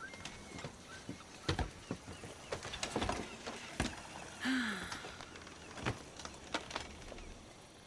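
Folding chairs being pulled out and sat in: a scattering of knocks, clatters and light scrapes. About four and a half seconds in there is a short murmured voice sound, falling in pitch.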